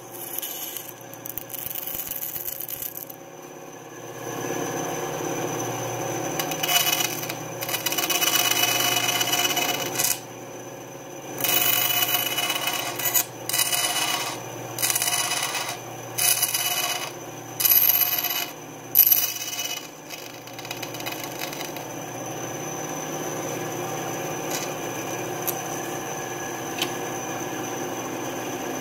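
Benchtop bandsaw running and cutting thin lite plywood wing ribs. The blade bites in a run of short, separate cuts through the middle, then runs steadily.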